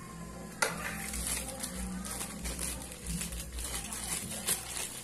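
A clear plastic bag crinkling and rustling as soft dough bait is pressed into it by hand, with light spoon scrapes and clinks against a plastic basin. The handling starts suddenly about half a second in and has a sharper knock near the end.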